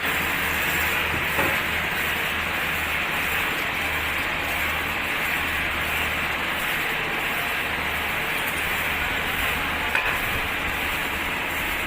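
Sawmill machinery running steadily: a low engine drone under a dense, even hiss, with a light knock about a second and a half in and another near the end.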